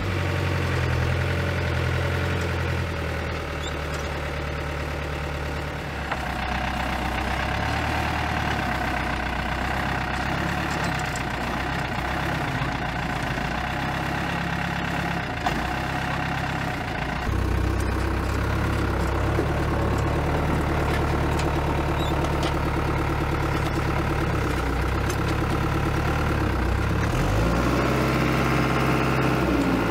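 Diesel engine of an Iveco light truck converted into a forklift, running steadily at low revs. The note shifts a couple of times, and near the end it revs briefly up and down.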